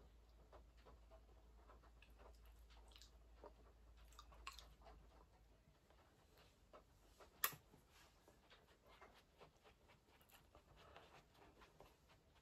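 Near silence: room tone with faint soft taps and small clicks, and one sharper click about seven and a half seconds in.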